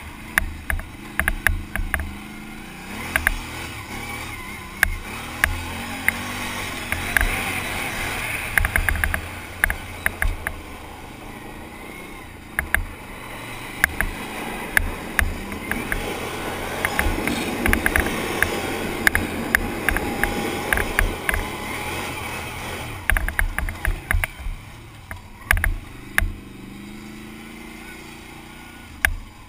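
Quad bike engine running under throttle as it is ridden, its pitch rising and falling, heard through wind buffeting on a helmet-mounted camera microphone. Frequent sharp knocks and clicks come through the whole time.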